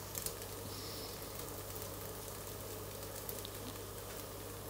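A thin Norwegian pancake frying in a pan on the stove, a faint steady sizzle.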